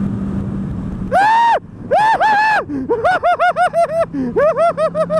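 Motorcyclist yelling in a high-pitched voice in alarm at buzzards in the road. After a steady hum of the motorcycle engine, a loud cry comes about a second in, then two more, then a run of quick repeated cries; the engine hum returns faintly near the end.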